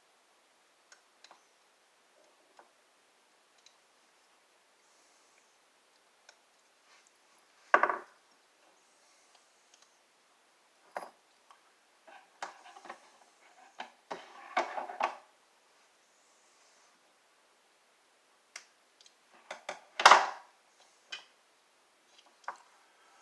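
Plastic clicks and clatter from a remote control and its parts being handled, with scattered light ticks, a cluster of clacks in the middle and louder knocks about eight and twenty seconds in.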